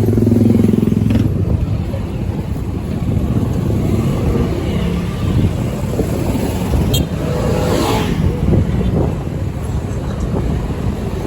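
City street traffic: motor vehicles such as motorcycles and cars running and passing close by, a steady rumble with an engine's droning tone for about the first second.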